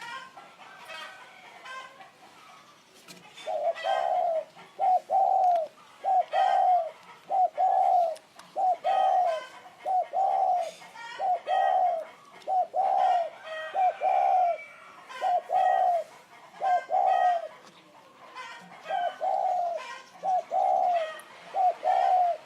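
Spotted dove cooing: a long series of repeated low coo phrases, notes grouped in twos and threes, starting about three and a half seconds in.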